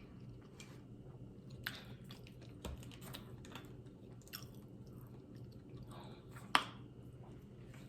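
Faint close-up mouth noises of eating and drinking: chewing and swallowing, with a few scattered small clicks and one sharper click about six and a half seconds in.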